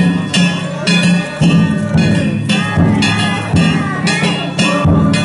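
Danjiri float's festival drum and hand gongs playing a steady beat, about two strokes a second. The gongs ring on between strikes.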